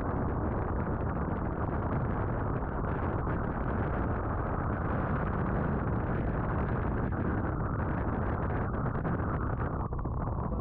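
Steady wind noise on the microphone, with choppy sea washing around in the shallows.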